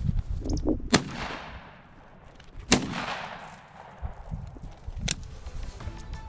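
Two shotgun shots, about a second and a half apart, each rolling away in a long fading echo, then a shorter sharp crack about five seconds in.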